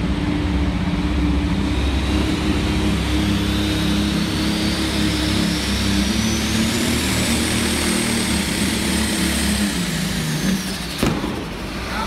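Big tractor-pull engines running steadily in the arena, with a high whine that climbs over several seconds, holds, then falls away about ten seconds in as the engine sound drops. A single sharp knock sounds about eleven seconds in.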